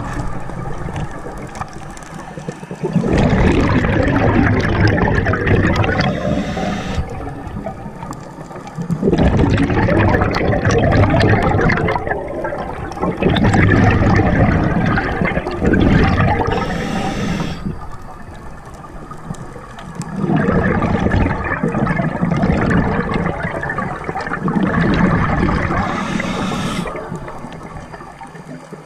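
A scuba diver breathing underwater through a regulator: long rushes of exhaled bubbles, each followed by a short hissing inhale, about three breaths.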